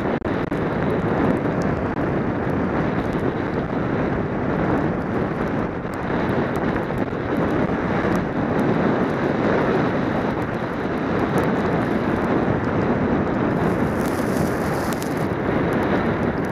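Steady rush of wind over the microphone of a body-mounted camera descending a ski slope at speed, mixed with the scrape of sliding over packed snow. A harsher hiss rises for about a second near the end.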